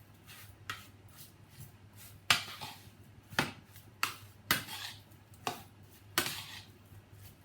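A utensil knocking against a bowl while chicken pieces are stirred and tossed in seasoning: about seven separate knocks at irregular intervals.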